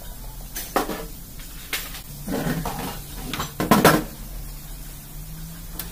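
Steel engine parts clinking and knocking together as they are handled in an open engine block with the crankshaft and camshaft fitted: a few light clicks, a short rattle, then the loudest cluster of clanks near four seconds in.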